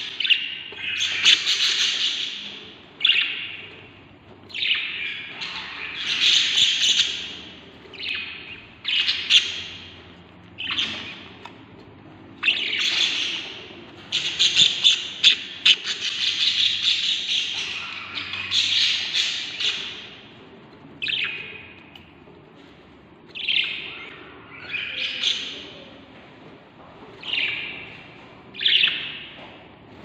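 Budgerigar nestlings in a nest box giving harsh, raspy begging calls in repeated bouts every second or two, the sound of hungry chicks.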